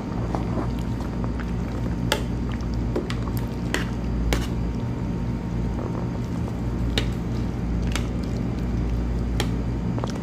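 Cabbage, glass noodles and chicken stirred in hot broth in a stainless steel pot, making wet squishing and sloshing sounds. A few sharp clinks of the metal utensil against the pot sound over a steady low hum.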